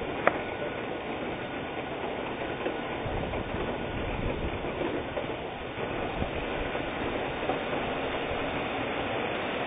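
Hurricane-force wind and heavy rain making a steady, even rush, with one sharp tap near the start.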